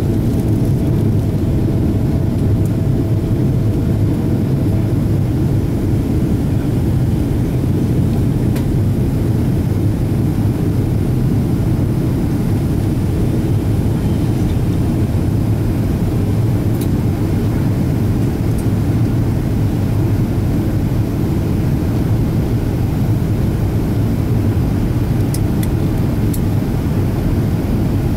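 Steady low cabin roar of a Boeing 777-200ER in flight, heard from inside the passenger cabin.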